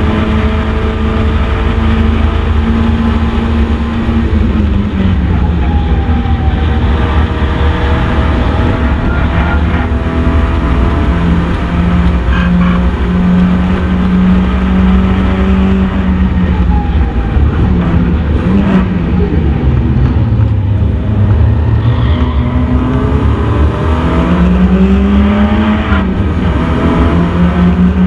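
Mk1 Mazda MX-5 race car's four-cylinder engine running hard at racing speed: its note holds high, falls as it slows for corners about four seconds in and again midway and near the end, then climbs again under acceleration. A steady low wind rumble sits under it.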